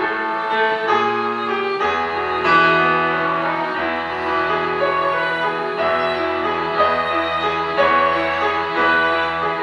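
Instrumental music: a piano melody over sustained string and bass chords, played on a Nord Stage 2 stage keyboard, with the bass note changing every second or two.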